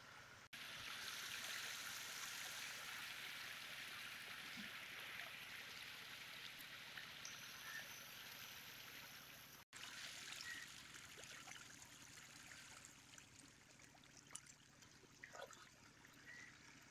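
Faint, steady splashing and churning of water from a dense crowd of hybrid magur catfish thrashing at the surface of a pond. The sound breaks off for an instant twice.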